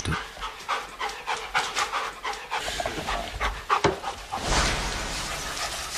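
A dog panting in quick, irregular breaths.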